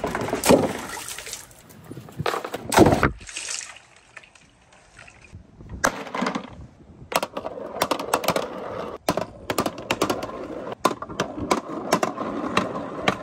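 A big ball rolls down a wooden pegboard marble-run slope and splashes into a tub of water, the loudest moment about three seconds in. From about six seconds in, many quick clicks of small balls clattering against plastic and each other, with water sloshing.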